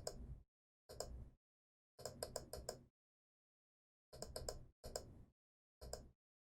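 Computer keyboard and mouse clicking in six short clusters of quick clicks, with dead silence between them.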